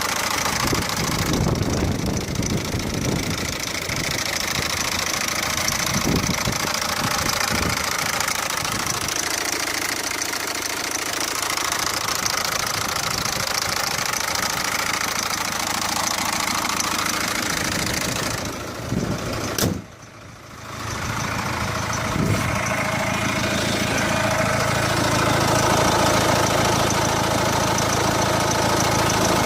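Peugeot 407's 1.6 HDi diesel engine idling with the abnormal engine noise its owner is asking about. The sound drops away briefly about two-thirds of the way through, then the engine is heard again, steadier.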